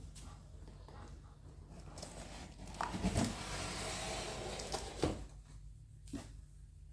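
Packaging being handled during an unboxing: scattered clicks and knocks, then a stretch of scraping and rustling, about three to five seconds in, with a couple of sharper knocks.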